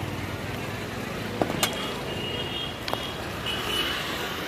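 Scooter seat being shut over its under-seat storage compartment: two sharp clacks about a second and a half apart. Behind them are steady outdoor traffic noise and faint high vehicle-horn tones.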